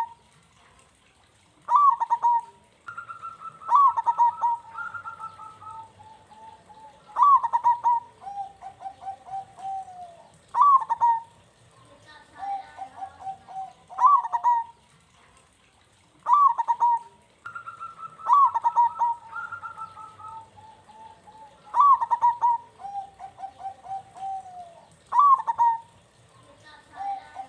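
Zebra dove (perkutut) singing its cooing song, a short phrase repeated about every three to four seconds. Each phrase is a quick rising-and-falling note followed by a trail of softer, lower coos.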